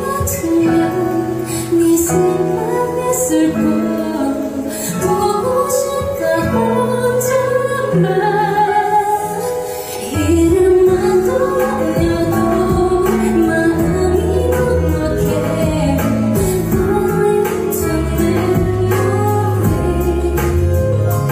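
Female solo vocalist singing live into a handheld microphone over an instrumental accompaniment, with a deeper bass line coming in about halfway through.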